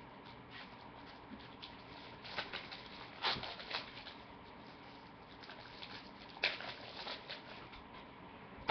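Plastic DVD cases being handled: scattered light clicks and rustles, with louder clusters of clatter about two and a half seconds in and again around six and a half seconds.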